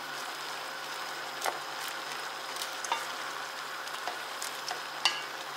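Stir-fried noodles with shrimp and vegetables sizzling in a pot as they are stirred and tossed with a spatula: a steady frying hiss with a few sharp knocks of the spatula against the pot.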